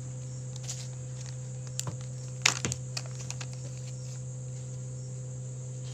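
Light plastic cups clicking and knocking together as they are thrown and caught, a handful of sharp taps with the loudest about two and a half seconds in, over a steady low hum.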